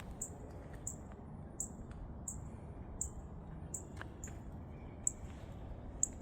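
A short, high-pitched chirp repeating evenly, about three every two seconds, over a faint steady low background hum, with a few sharp clicks in the second half.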